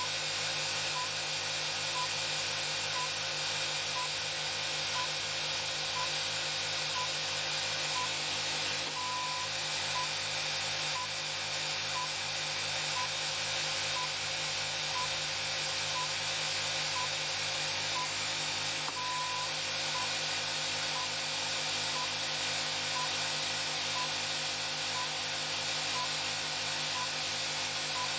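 Steady electrical hum and hiss, with a short high electronic beep once a second and a longer beep every ten seconds, like a timing beeper.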